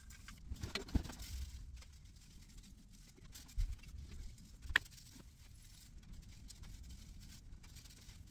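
Quiet handling noise and scattered light knocks from Christmas ornaments being handled and hung on an artificial tree. Footsteps cross a wooden floor, with a low thump about three and a half seconds in and a sharp click just before five seconds.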